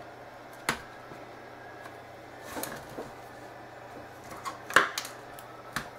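Scattered sharp clicks and light rustling from the plastic chassis and cable connectors of a Samsung NP355V5C laptop being handled during disassembly. There is a click just under a second in, a brief rustle around the middle, a louder click near five seconds and another near the end.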